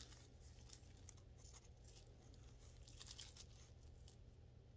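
Near silence: faint, scattered rustles and light ticks of hands handling a small pot with a potted plant, over a low steady hum.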